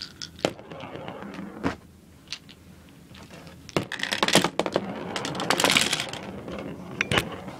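Small plastic marbles clicking and clattering against a plastic B-daman launcher and its wide magazine as they are handled and loaded: a few separate sharp clicks, then a denser run of clatter in the second half.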